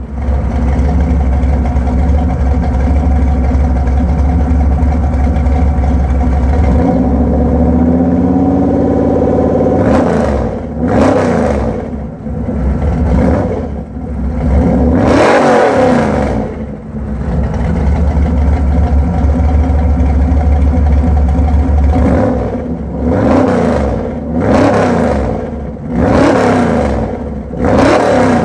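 1985 Chevy C10's Vortec 350 small-block V8 with a small Lunati cam, exhausting through 2.5-inch Spintech Pro Street 6000 mufflers that exit ahead of the rear tires, idling and then revved in a series of short throttle blips. One blip about halfway through is held a little longer, then the engine settles back to idle before four more quick blips near the end.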